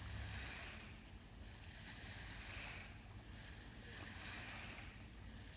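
Small waves lapping on a rocky lakeshore: a faint, soft wash that swells and falls every second or two, over a low rumble.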